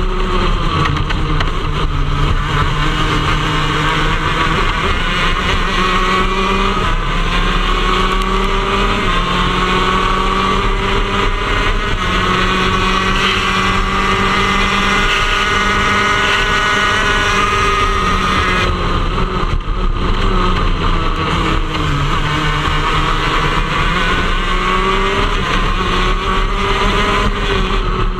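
Shifter kart's two-stroke racing engine heard from on board at speed, its pitch rising and falling as the revs climb and drop through the corners.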